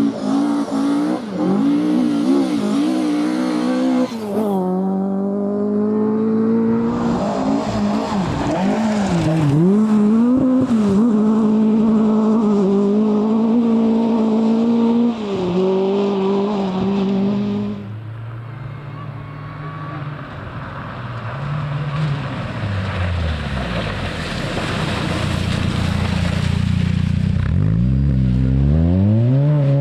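Rally car engines at full throttle: the revs climb and drop sharply through gear changes and lifts for corners, over a hiss of tyres on the loose stage surface. The note falls away about two-thirds in. A deeper engine then builds and revs up again near the end.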